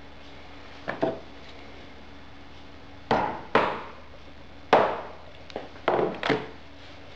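Hammer blows setting metal studs into a leather knife sheath on a hard workbench: two light taps about a second in, then five heavy knocks in uneven succession over the next few seconds.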